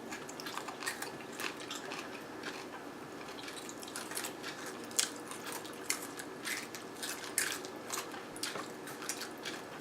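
People chewing and crunching on snacks, with irregular small crunches and clicks of eating.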